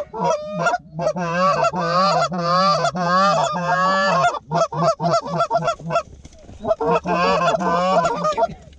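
Goose calling, very loud and close: a run of long wavering honks, then a quick string of short clucks, then more honks. The loudness points to a hunter's handheld goose call rather than wild geese at a distance.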